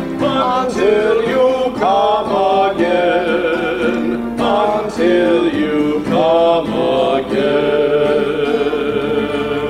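Sung memorial acclamation of the Catholic Mass: voices singing a slow melody with accompaniment, ending on a long held note that fades out near the end.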